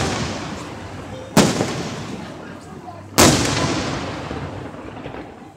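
Aerial firework shells bursting overhead: two sharp bangs about two seconds apart, each trailing off in a long fading echo. The echo of a burst just before is still dying away at the start.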